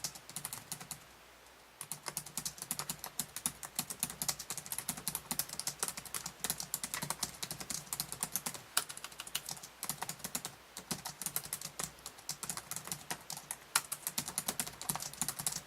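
Fast typing on a Z330-GE3SK laptop's built-in keyboard: a dense, rapid run of key clicks, with a pause of about a second near the start.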